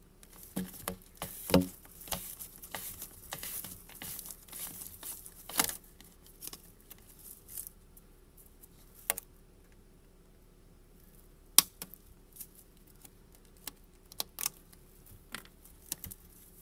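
Hand work on an RV sewer hose fitting being cleaned up: scattered clicks and taps, with a stretch of scraping near the start.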